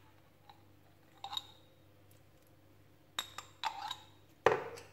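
Light clicks and knocks of a small glass jar against a plastic mixing bowl as a white sauce is shaken out into the filling. There are a couple of faint taps at first, then a quick run of sharper knocks near the end.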